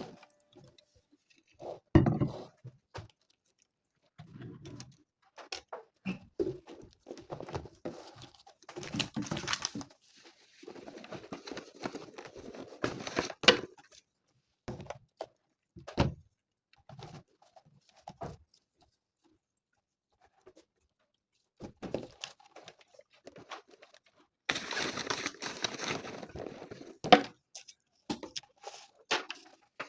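Intermittent clicks, knocks and rustling, with a few sharper thuds and a longer stretch of rustling near the end.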